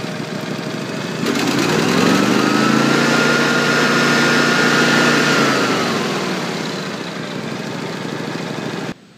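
Propane-fuelled Kawasaki FH500V V-twin engine idling, then throttled up about a second in: its pitch rises over a second or so, holds for a few seconds, and falls back to idle, before the sound cuts off suddenly near the end. The engine is missing and slow to gain RPM, a fault traced to its crankcase vent tube lodged in the carburetor throat.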